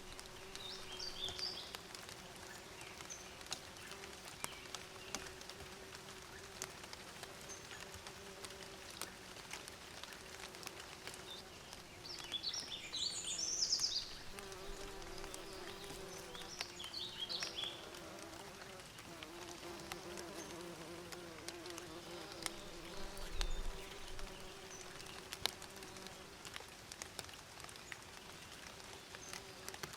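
Bees buzzing steadily in a low hum, with short bursts of bird chirps about a second in, near the middle and again a few seconds later.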